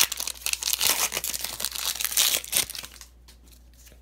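Plastic wrapper of a retail pack of trading cards crinkling as it is handled and torn open, a fast run of crackles that stops about three seconds in.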